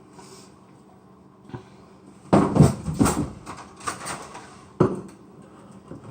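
Kitchen clatter of cans and cookware being handled on a counter: a burst of knocks and scrapes a little past two seconds in, a few more after, and one sharp knock near the end.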